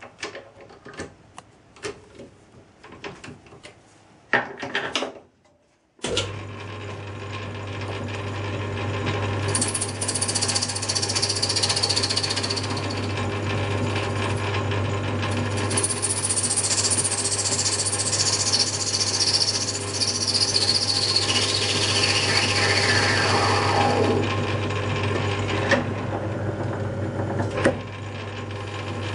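Clicks and knocks as a brass bar is set in a Myford lathe's three-jaw chuck, then the lathe starts about six seconds in and runs steadily with a low motor hum. A tool cuts the end of the brass bar in two long spells of high, hissing cutting noise, the second ending in a whine that slides down in pitch. Two sharp knocks come near the end.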